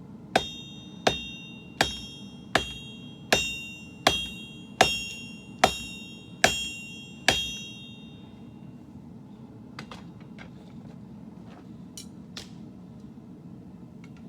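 Forging hammer striking a sword blade on an anvil: ten blows about three-quarters of a second apart, each leaving a bright metallic ring. A few faint light taps follow.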